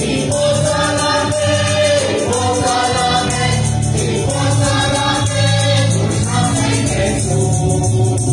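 Mixed choir of men's and women's voices singing a church song in the Mam language, with keyboard and acoustic guitar, in phrases of held notes lasting a second or two.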